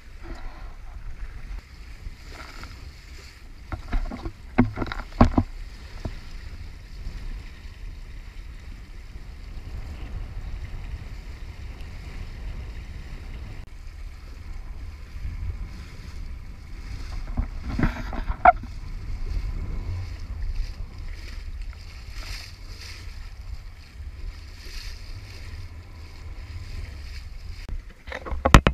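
Wind buffeting the microphone and water rushing along the hull of a small Mewa sailboat under sail, a steady low rumble with a hiss over it. A few sharp knocks come about four and five seconds in and again near eighteen seconds, and a loud clatter of knocks starts near the end.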